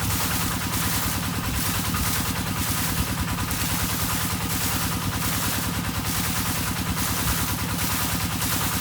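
Water pump engine running steadily in a rice field, with a frog chorus calling over it in an even pulse about twice a second.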